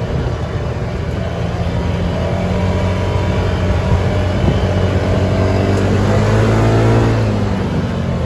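2019 Polaris RZR 570 side-by-side's single-cylinder engine running on a test drive, revving up from about five seconds in, at its loudest around seven seconds, then easing off near the end.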